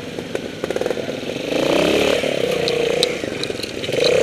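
Trials motorcycle engine close to the microphone, chugging at low revs, then revved hard in surges about a second and a half in and again near the end. A few light clicks come through as the bike struggles on a steep slope and goes down.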